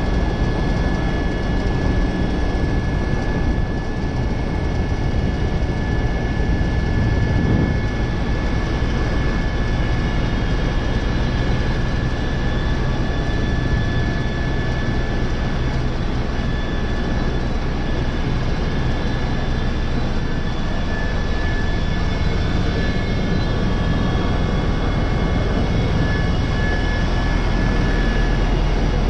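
Helicopter in flight heard from inside the cabin: a steady low drone from engine and rotor with a thin, constant high whine on top.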